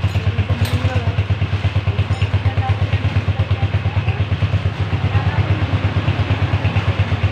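Racal 150 enduro motorcycle's engine idling steadily, a quick, even beat of low exhaust pulses.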